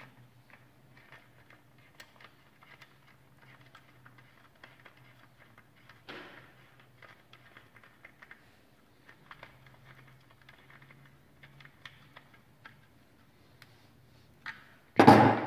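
Light metallic ticks and clicks of an Allen key turning a steel bolt into the plastic stock and lower receiver of an AR-type shotgun, with one firmer click about six seconds in and a loud knock near the end.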